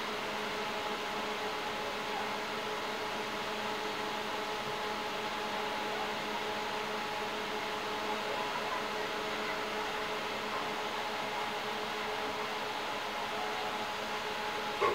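Steady mechanical whir with a constant hum of several steady tones, typical of the small motor of a rotating display turntable; a short knock right at the end.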